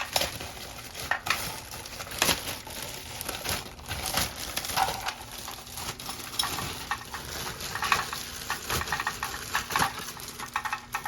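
Plastic parts of a new toilet flush valve and its packaging being handled: irregular clicks, taps and crinkling rustles.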